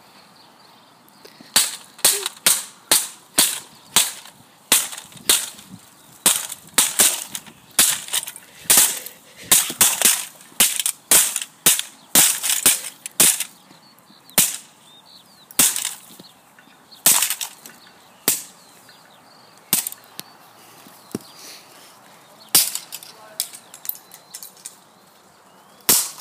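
A plastic toy gun being struck hard over and over, a long run of sharp cracks at roughly one or two a second that stops about three-quarters of the way through, leaving a few quieter knocks.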